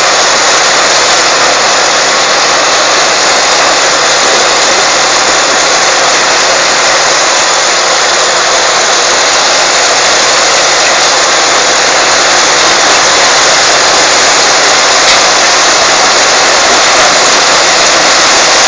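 Sugarcane harvester running steadily, a loud even machine noise with no change in pitch or level.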